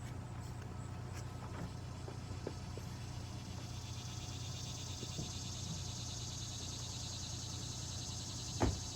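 Insects chirping steadily in a high, pulsing drone over a low, constant hum, with a few light clicks and one short knock near the end.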